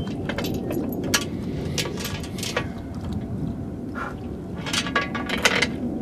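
Siberian huskies drinking from a water bowl: irregular lapping and clinks of metal collar tags, bunched about a second in and again near the end, over steady wind noise on the microphone.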